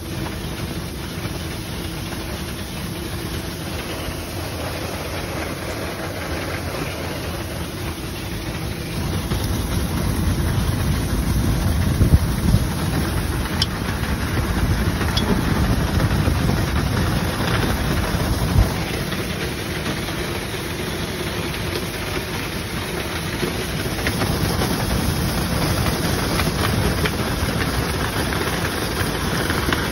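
Duct-cleaning equipment running: a steady machine drone and rushing air as a compressed-air hose blows dust loose inside flexible foil ductwork. It gets louder about a third of the way in, with a few sharp knocks.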